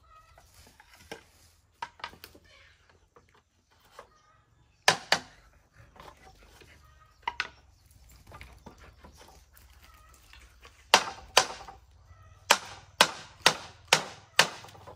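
Hand tool striking wood: a couple of spaced pairs of sharp blows, then a quicker run of about seven strikes, roughly two a second, in the last four seconds.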